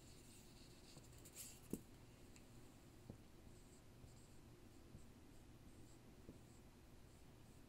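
Dry-erase marker writing on a whiteboard: faint short squeaks and light taps of the tip as letters are stroked on, coming in a quick series over the second half.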